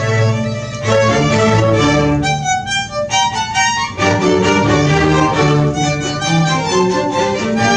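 A string ensemble of violins, violas, cellos and double bass playing a Baroque concerto movement, with the low strings dropping out for a moment near the middle before the full ensemble returns.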